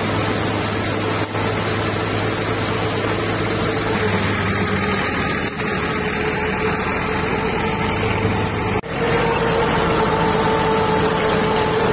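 Tractor-driven wheat thresher running while bundles of cut wheat are fed into it: a loud, steady machine drone with a constant hum from the tractor engine and the spinning drum and pulleys. The sound drops out for an instant a few times, most sharply near the end.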